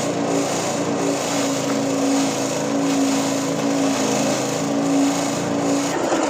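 Grass chopping machine running steadily while shredding durian peel: an engine drone with a rough, noisy chatter of the cutting over it. The steady drone drops away near the end.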